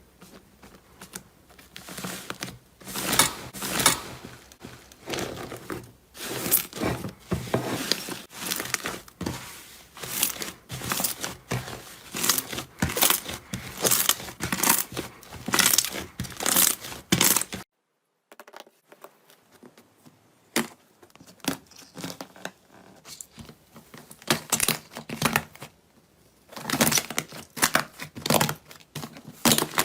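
Slime being squeezed, stretched and poked: a dense run of sticky clicks, pops and crackles. The sound drops out completely a little past halfway, then quieter clicking starts again and grows louder near the end.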